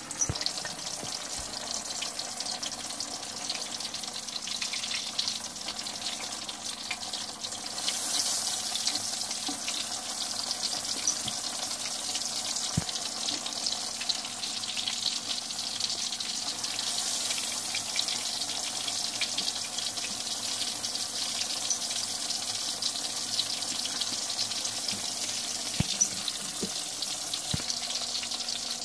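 Chapli kababs shallow-frying in hot oil in a cast-iron skillet: a steady crackling sizzle that grows louder about eight seconds in.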